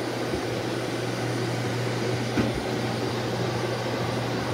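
Shark Navigator Lift-Away Professional vacuum cleaner in lift-away canister mode, its motor running steadily with a low hum under the air noise. There is one light knock about halfway through.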